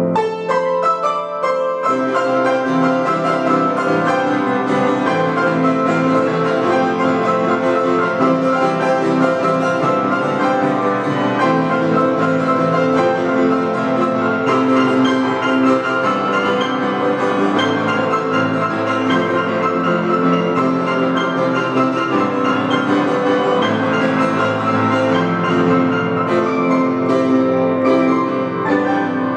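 Upright acoustic piano played as a duet, two players sharing one keyboard, in a continuous piece of sustained chords and moving melody. The low notes drop out briefly near the start, then the full texture resumes.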